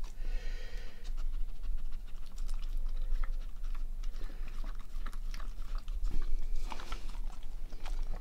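A greyhound eating wet food from a stainless steel bowl: steady chewing with many short clicks and knocks as its mouth works in the bowl.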